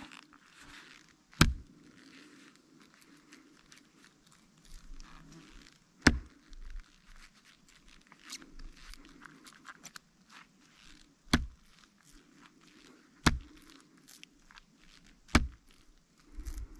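Tip of a Hultafors OK4 Scandi knife struck into a tree's wood in a tip-temper test: five sharp knocks a few seconds apart, with faint scraping and crackling of bark being pried off between them.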